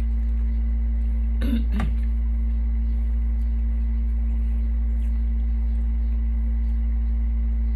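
A steady low hum with a constant tone above it, and one brief cough-like throat sound about a second and a half in.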